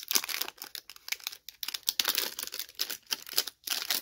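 Clear plastic wrapper of a vintage baseball card pack crinkling and tearing as it is peeled open by hand, in a dense run of irregular crackles.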